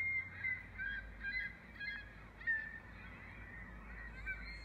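Recorded gull calls, a string of short cries, played from the speakers hidden inside a sound sculpture, over a steady low hum.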